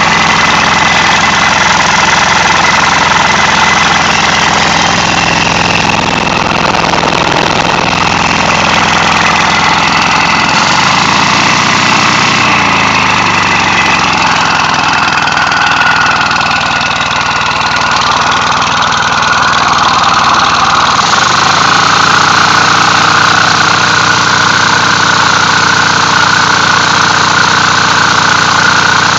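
A 5 hp Briggs & Stratton single-cylinder engine converted into an air/steam recompression engine, running steadily with a loud hiss from its exhaust. Its speed swells up and drops back about eleven to fourteen seconds in, then rises and holds higher from about twenty-one seconds in.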